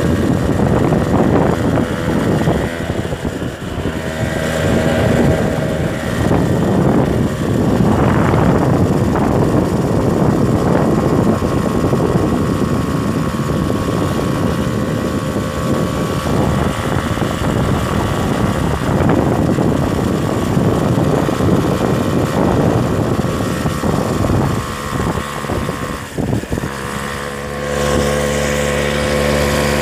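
Motorcycle engine running while riding over a rough dirt track, with wind buffeting the microphone; near the end the bike slows and the engine settles to a steady idle.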